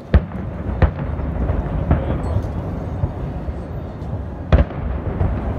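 Aerial firework shells bursting: a sharp bang at the start, another under a second later, a weaker one about two seconds in and a loud one about four and a half seconds in, with a steady low rumble between them.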